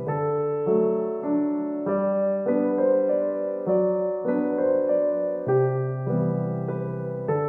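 Background music: a gentle piano melody of single notes changing about every half second.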